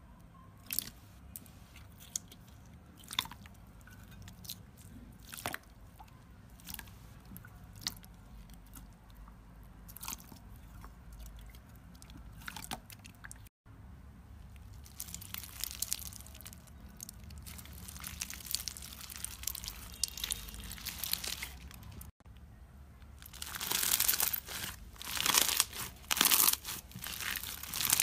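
Hands working slime: first sparse, faint sticky clicks and pops from a clear jelly-like slime, then dense crunching and crackling as slime packed with plastic pearl beads is squeezed, loudest near the end.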